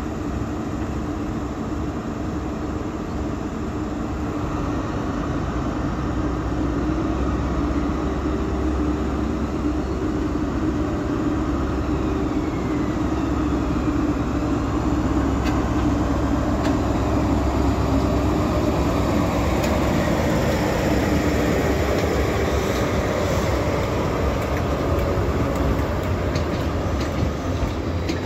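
Diesel engine of a ScotRail HST's Class 43 power car running as the train moves slowly past, a steady low drone that grows louder towards the middle. Light clicks of the wheels over rail joints come in during the second half.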